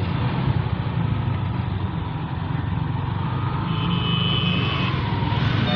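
Steady engine rumble and road noise heard from inside a moving vehicle, with a short high-pitched tone a little under four seconds in.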